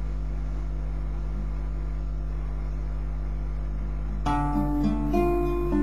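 A steady low hum for about four seconds, then a classical guitar starts playing, picked notes following one another.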